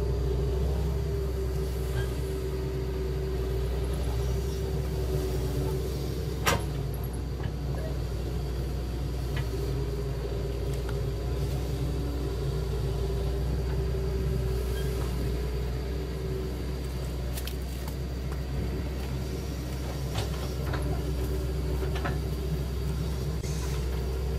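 Radio-controlled Cat tracked excavator model running: a steady low hum with a whining motor tone that drops out for a few seconds and comes back as it tracks forward and swings its boom into the sand. A sharp click about six seconds in.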